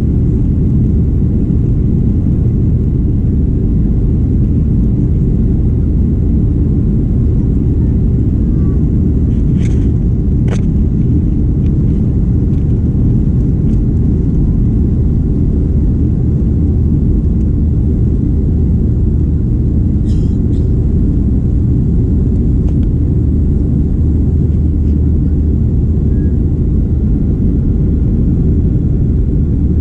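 Steady low cabin rumble inside a Boeing 737-800 passenger jet, with a few faint clicks about ten and twenty seconds in.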